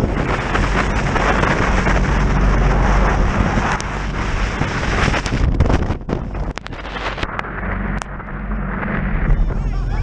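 Jet boat running at speed through wind and chop: a steady engine drone under heavy wind buffeting on the microphone and rushing spray, with a run of sharp crackles and brief dropouts from about five and a half to eight seconds in.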